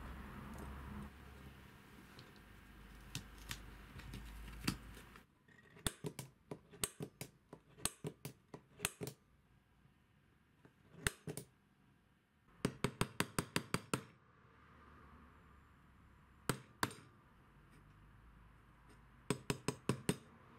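Small ball-peen hammer tapping a centre punch on steel plate, marking hole centres through paper templates: quick runs of light metallic taps, several a second, with short pauses between runs.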